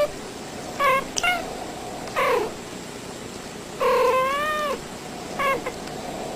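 A cat meowing repeatedly: about five short meows, the longest near the middle with a wavering, up-and-down pitch.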